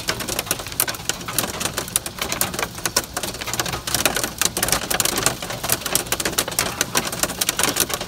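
Hail pelting a car's hood and windshield, heard from inside the car: a dense, irregular clatter of sharp ticks.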